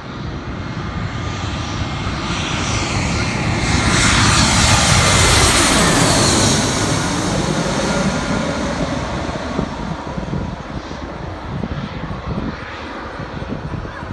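Airplane on landing approach passing low overhead: its engine noise swells to a peak about halfway through, drops in pitch as it goes by, and trails off into a low rumble.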